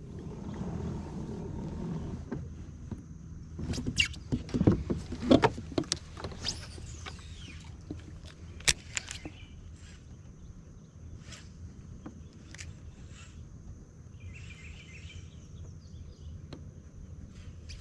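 Knocks and clatter of gear on a plastic kayak hull, with a loud cluster about four to six seconds in and one sharp knock near nine seconds, over a low steady rumble of the boat on the water.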